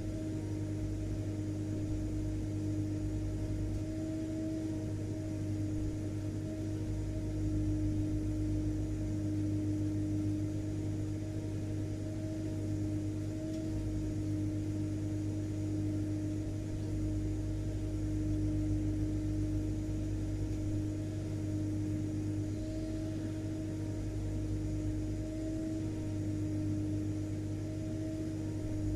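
Vacuum cleaner motor running steadily: a constant low hum with a steady mid-pitched whine over airflow noise, unchanging throughout.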